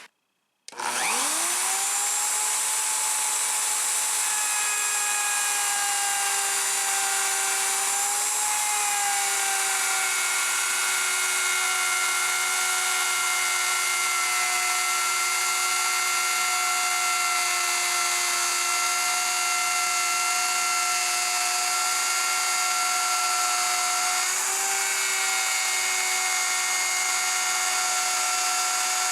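Electric power tool motor spinning up about a second in, then running steadily at a high whine while cutting dados in sheet-good panels, its pitch dipping slightly twice under load.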